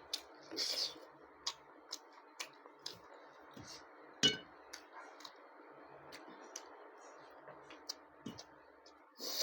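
Someone eating: scattered light clicks and a few clinks of a dish, the loudest clink about four seconds in, over a steady background hiss.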